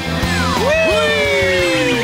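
Upbeat rock-style background music. A long note swoops up and then slides slowly down in pitch.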